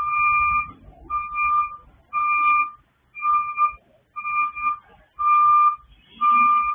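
Reversing alarm on a white flatbed utility truck backing up: seven evenly spaced, steady single-pitch beeps, about one a second.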